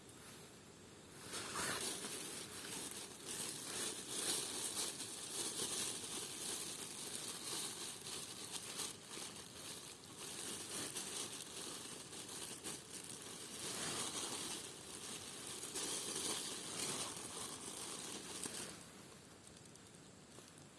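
Rustling and crinkling noise with many small crackles, starting about a second in and stopping near the end.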